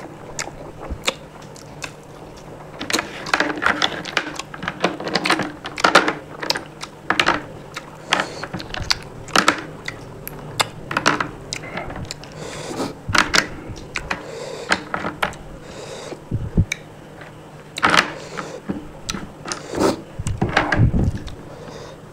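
Close-miked eating sounds: a person chewing, with wet lip smacks and quick, irregular clicks that come in bunches of several a second from about three seconds in. A few dull low thuds come near the end.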